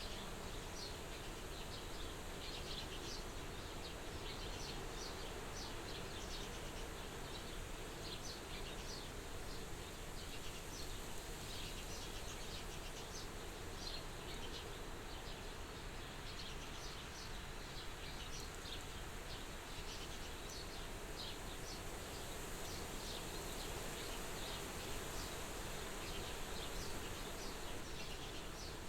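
Soft, steady wind outside a farmhouse window, with many short high-pitched chirps scattered through it.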